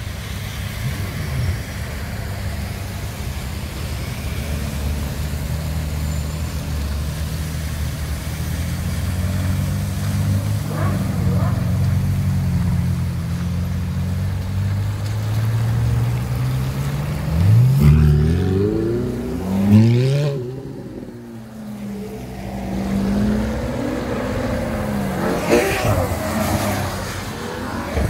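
Ferrari sports car engines rumbling at low speed as the cars roll past in a slow column, then two or three sharp throttle blips that rise quickly in pitch, followed by a car accelerating away.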